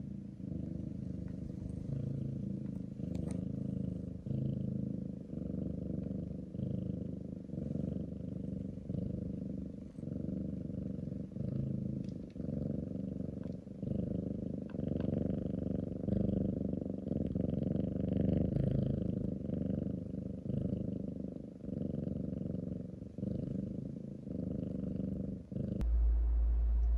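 Persian cat purring close to the microphone: a steady low rumble that dips briefly about once a second as it breathes. Near the end it gives way to a steady low hum.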